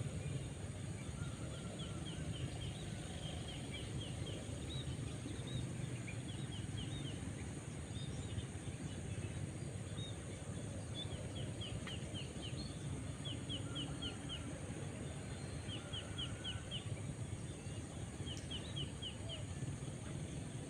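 A bird calling again and again in short runs of four or five quick, high, falling notes, over a steady low background rumble.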